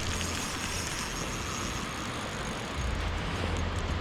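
Steady rush of water flowing below a spillway, with a low rumble of wind on the microphone that swells near the end.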